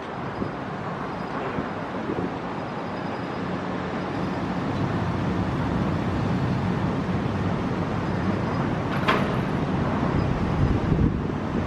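Steady rumble of a car on the move, road and engine noise, with one short sharp click about nine seconds in.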